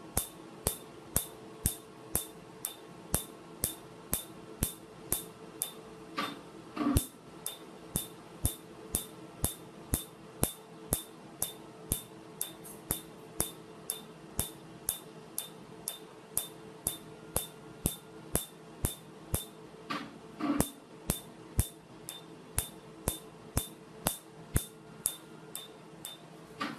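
PicoWay picosecond tattoo-removal laser firing on the skin, a sharp snap with each pulse, evenly at about two pulses a second, over a steady low hum.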